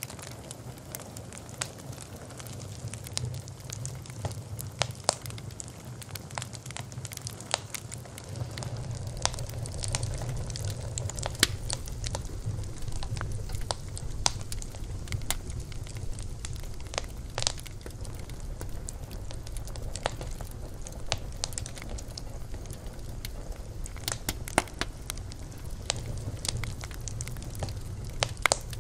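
Campfire burning, the wood crackling with frequent irregular sharp pops over a low steady rumble of the flames, which grows louder about eight seconds in.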